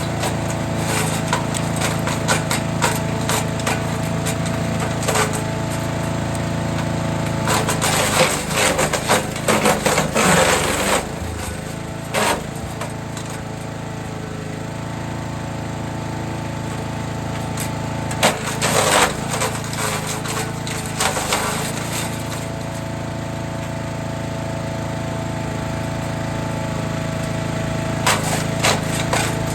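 Forest Master FM8DD wood chipper's engine running steadily while branches are fed in, with several bursts of cracking and snapping as the wood is chipped. The longest burst comes about a third of the way in, where the engine note sags under the load.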